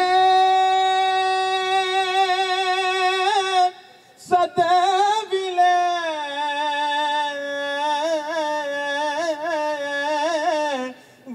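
A man's solo voice singing a devotional salam unaccompanied, on drawn-out vowels with no words: one long held high note, a short breath about four seconds in, then long phrases ornamented with quick wavering turns.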